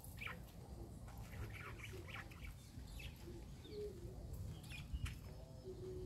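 Wild birds giving short, scattered chirps, with a sharp click about five seconds in and a low rumble underneath.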